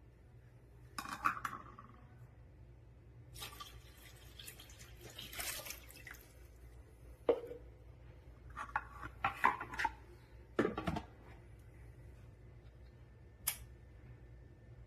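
Scattered clinks, knocks and rattles of hard objects being handled, with a longer rustling, splashing-like stretch between about three and six seconds in, over a low steady hum.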